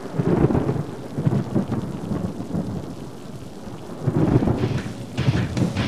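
Thunder-like rumble sound effect with crackle on top. It swells twice, once right at the start and again about four seconds in.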